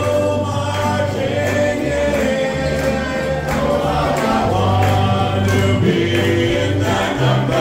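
Live band with banjo and guitars playing a song while several voices sing together.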